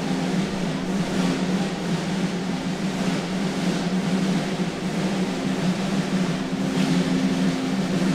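Music built on a sustained low drum roll, with a few louder strokes on top.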